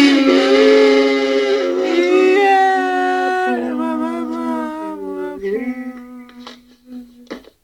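A small group of women singing a cappella in harmony, holding long notes that glide slowly from pitch to pitch; the singing fades gradually and dies away near the end.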